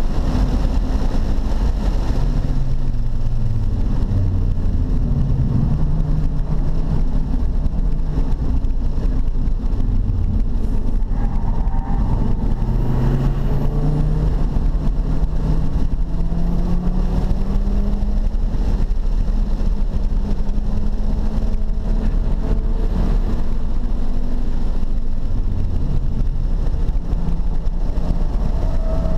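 Car engine heard from inside the cabin at track pace, its note climbing under acceleration and dropping as it eases off for corners, with one long climb around the middle, over a steady low rumble of road and wind noise.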